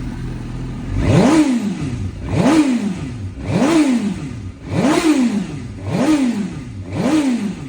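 Fuel-injected Suzuki motorcycle engine revved six times in a row, each blip rising sharply and falling back toward idle about once a second, running cleanly after sitting unstarted for twelve years.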